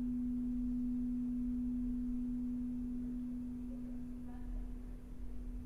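A single sustained pure tone, held at one steady low-middle pitch with almost no overtones, dipping slightly in loudness in the second half.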